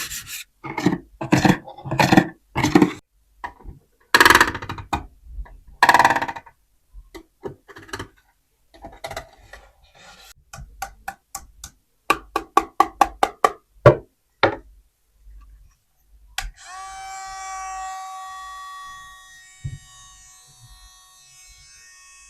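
Plastic toy dishes knocking and clattering as they are handled, with a quick run of light knocks about two thirds of the way in. Near the end comes a bell-like ringing with several pitches that slowly fades.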